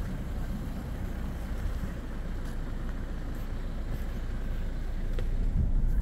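A four-wheel drive moving slowly over a dirt bush track: a steady low rumble of engine and tyres, with wind on the microphone. It grows a little louder near the end.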